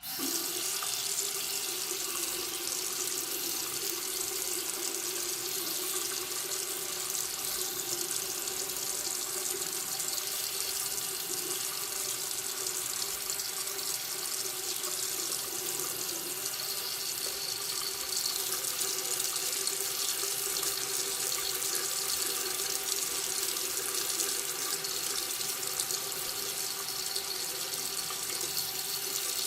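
Water running steadily from a faucet, a continuous even splashing stream that starts abruptly and carries on unchanged.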